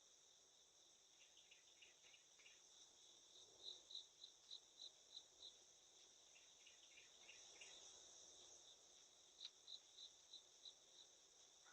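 Faint outdoor insect chorus: a steady high trill of crickets, with two runs of evenly spaced chirps, about three a second, and softer lower chirps between them.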